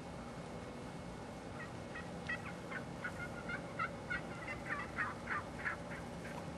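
A flock of wild turkeys calling: a run of short, rapid calls that starts about one and a half seconds in and grows louder toward the end.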